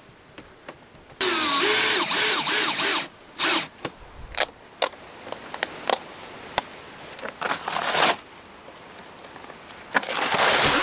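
A DeWalt brushless cordless drill driving screws in short bursts, its motor pitch swinging up and down as the screw bites. Near the end comes loud ripping of cardboard packaging being torn off a worktop.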